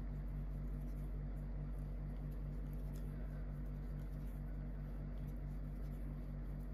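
Faint scratching and ticking of a crochet hook pulling yarn through stitches, over a steady low hum that pulses fast and evenly.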